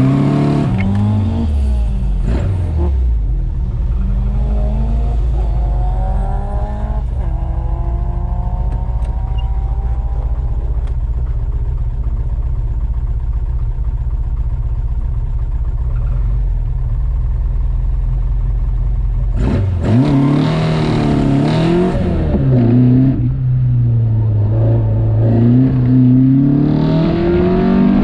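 Porsche sports car engine idling steadily, heard from the open cockpit. About twenty seconds in it is revved hard and the car launches, accelerating with the engine note rising and dropping through the gear changes.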